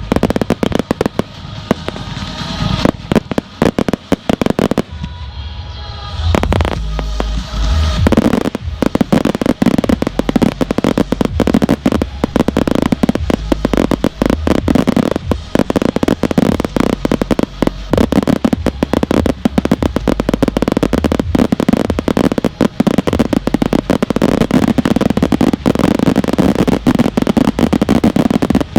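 Consumer fireworks going off: scattered bangs over the first few seconds, then from about eight seconds in a dense, continuous barrage of sharp reports and crackling from cakes and mortars.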